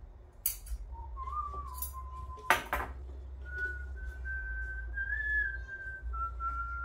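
Someone whistling a slow tune in long held notes, while glass and metal clink on a countertop; the loudest sound is a clatter about two and a half seconds in.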